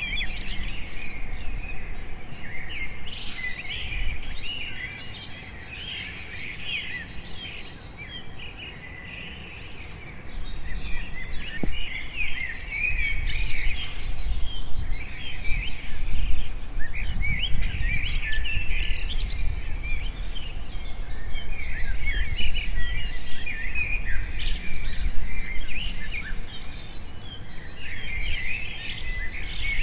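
Many birds chirping and calling in quick, overlapping phrases, with a low rumble coming in about ten seconds in.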